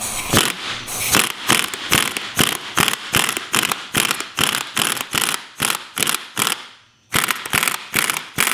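Pneumatic impact wrench hammering in quick repeated pulses, about three a second, stopping briefly about seven seconds in and then starting again. It is working loose the top nut of a coil-spring strut, which has not yet come off.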